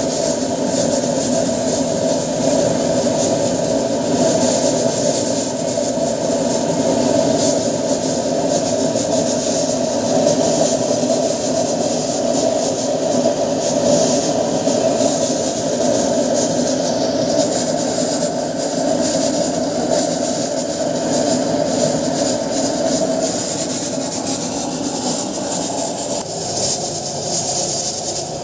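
Homemade drip-feed waste-oil burner running, with a loud, steady roar of forced air and flame.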